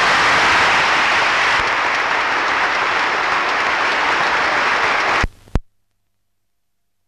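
A large audience of House members applauding continuously for about five seconds; the applause then cuts off abruptly.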